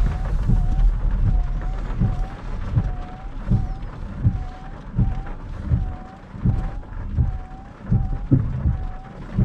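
Heavy rain drumming on the roof of a Nissan Note e-POWER, heard from inside the cabin as irregular low thuds over a steady hiss, a little noisy. A faint whine rises and falls about twice a second throughout.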